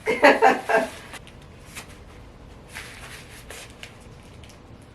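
A brief burst of voice lasting about a second, with no clear words. Then soft, faint shuffling and handling noises.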